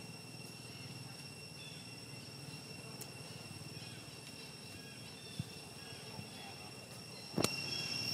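Steady high-pitched drone of insects with a low background rumble. A sharp knock comes about seven seconds in, followed by a louder stretch of noise.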